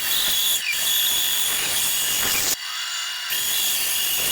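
Small benchtop bandsaw cutting a wooden blank, its blade rasping through the wood. The cut eases off briefly about two and a half seconds in, then resumes. The blade is the saw's dull original one.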